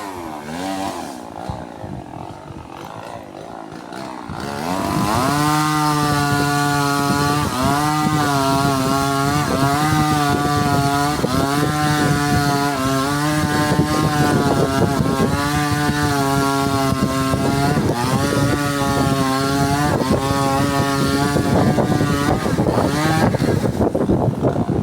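Two-stroke chainsaw idling, then revved to full throttle about four seconds in and held there for about twenty seconds while cutting wood, its pitch repeatedly sagging and recovering as the chain bites. The engine eases off near the end.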